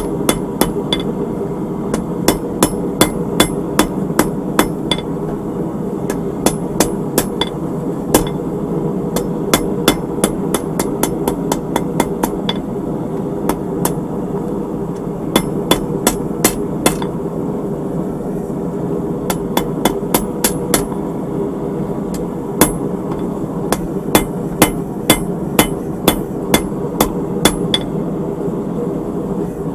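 Blacksmith's hand hammer striking hot 3/8-inch round steel bar on an anvil, drawing out the pendant's body and knocking down its corners. The blows come in quick runs of several strikes with short pauses between, over a steady background rush.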